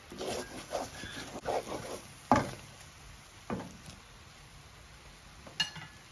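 Wooden spatula stirring and scraping thick egg chili paste in a nonstick wok: soft scrapes through the first two seconds, then sharp knocks of the spatula on the pan a little over two seconds in and again about three and a half seconds in, and a short ringing clink near the end.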